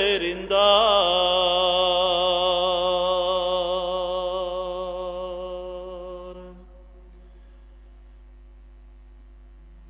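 A man's voice chanting an Orthodox hymn, holding one long closing note with a slight waver that slowly fades and stops about six and a half seconds in. A faint steady hum remains.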